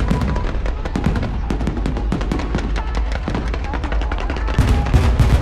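Aerial fireworks bursting in rapid succession: a dense run of sharp cracks and crackling over a deep rumble of booms, growing louder about four and a half seconds in.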